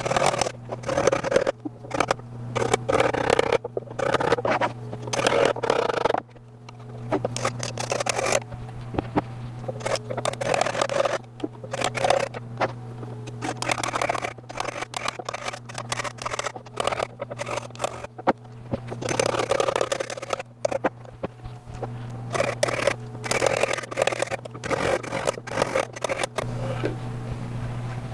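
Hand-worked pallet wood: scraping, rasping strokes in irregular runs as the cut handle opening is worked by hand, over a steady low hum.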